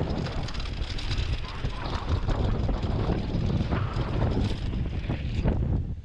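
Wind buffeting the camera microphone and the tyres of a downhill mountain bike rolling fast over a dry dirt trail, with the bike rattling over bumps.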